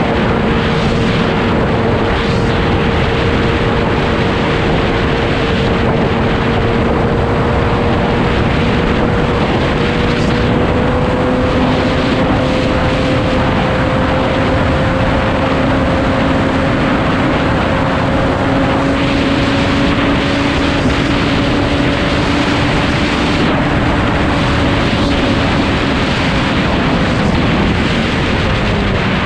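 Inline-four sport motorcycle engine pulling at a steady high speed under loud, rushing wind noise. The engine note climbs slowly for most of the stretch, then drops near the end as the throttle eases.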